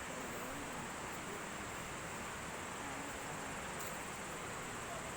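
Steady hiss of outdoor background noise with faint distant voices.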